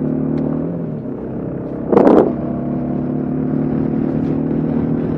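Kawasaki KLR 650's single-cylinder four-stroke engine running at road speed, easing off briefly about a second in. About two seconds in, a short, loud rush of noise cuts across it before the steady engine note returns.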